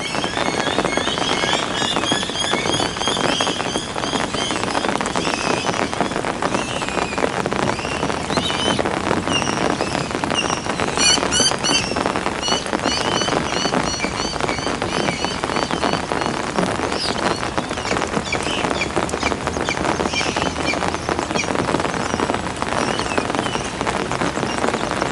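Heavy rain falling steadily, with many short, high bird chirps over it, thickest near the start and again about eleven seconds in.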